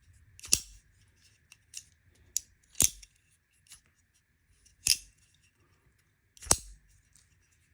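Demko AD20.5 folding knife being flicked open and closed by hand: the blade snaps into place with four loud, sharp metallic clicks about two seconds apart, with lighter ticks of the action between them.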